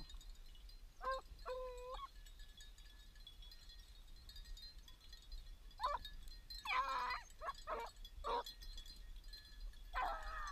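Beagles giving short, pitched bays and yelps, single calls at first and then quicker runs of several about seven and ten seconds in.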